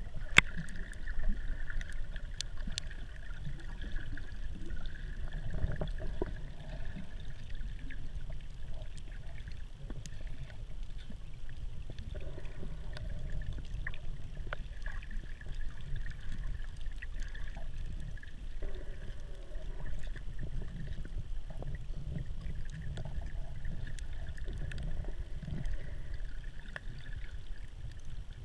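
Underwater sound picked up by a submerged camera: a low, steady rumble of moving water with scattered faint clicks.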